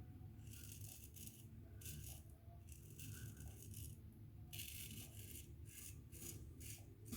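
Gem Featherweight single-edge safety razor scraping through lathered stubble: a faint series of short rasping strokes, roughly one to two a second.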